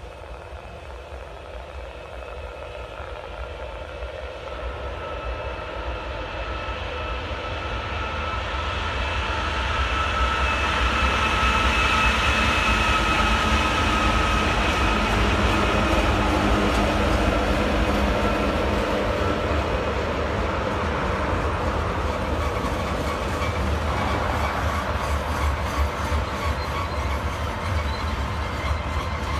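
Union Pacific diesel locomotives hauling a loaded unit coal train, growing louder as they approach and passing close about halfway through. The loaded coal hoppers then roll steadily by.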